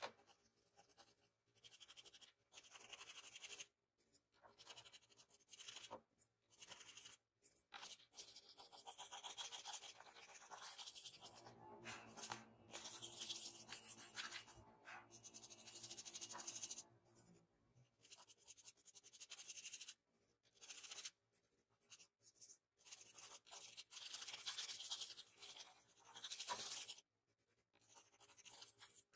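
Faint pencil strokes scratching on drawing paper, shading in runs of a second or two with short pauses between them.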